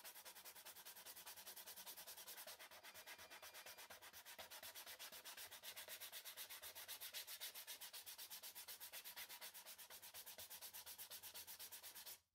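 80-grit sanding disc rubbing against a macrocarpa pine bowl spinning on a wood lathe: a steady rasping hiss that pulses rapidly and evenly. It starts abruptly and cuts off just before the end.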